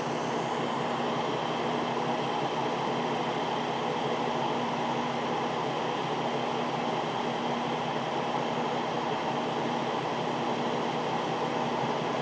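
A diesel railcar idling while stopped: a steady engine drone with one constant hum-like tone, unchanging throughout.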